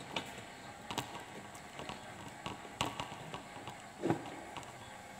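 A handful of light, scattered clicks and taps from handling a multimeter's probes and an opened radio's circuit board, over faint hiss; a fuller knock comes about four seconds in.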